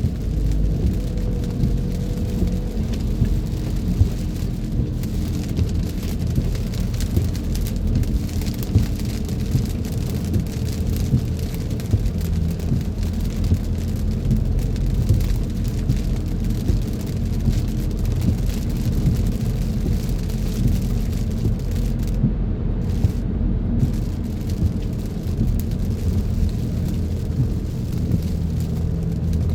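Rain hitting a moving car, with a steady low road and engine rumble underneath and scattered ticks of drops throughout.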